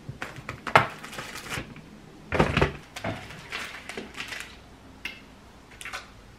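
Hard plastic knocking and crinkling as a clear plastic storage bin and its lid are handled among plastic-bagged products. There is a sharp clatter about a second in and a longer, louder one about two and a half seconds in, then lighter clicks and rustles.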